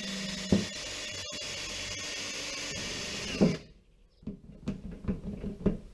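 Cordless drill running steadily as it drills out old pop rivet heads in galvanized sheet metal. It stops suddenly about three and a half seconds in, followed by a few light knocks.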